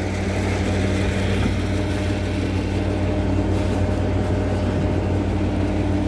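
A heavy diesel engine idling steadily, an even low drone that does not change.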